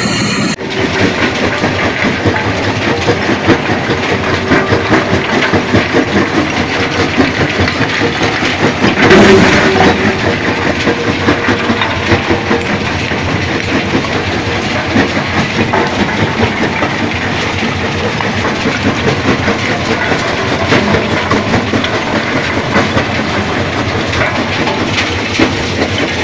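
Vibrating grizzly feeder running loaded with large stones: continuous loud rattling and clatter of rock shaking over the grizzly bars, with a louder burst of clatter about nine seconds in.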